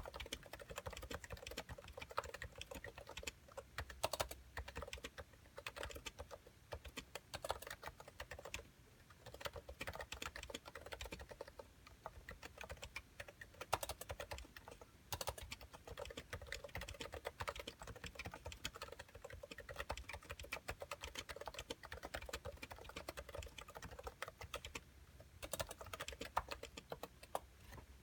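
Cooler Master Novatouch keyboard with 45 g Topre switches and thick PBT keycaps being typed on continuously. It makes a fast, steady run of key presses with a couple of brief pauses.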